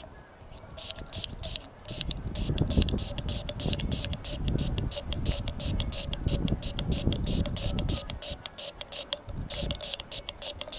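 Aerosol can of Swix Glide Wax Cleaner spraying into a glass jar: a hiss that starts about half a second in and comes in rapid pulses, about four a second, with a low rumble underneath.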